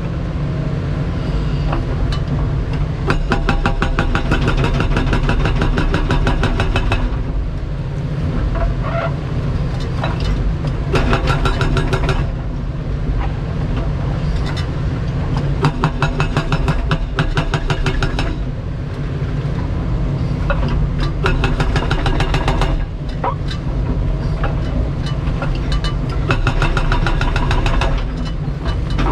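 A 6,800 lb hydraulic breaker hammer on a Kobelco 350 excavator pounds concrete in rapid blows. It runs in several bursts of a few seconds each, with short pauses between, over the steady drone of the excavator's diesel engine, heard from the cab.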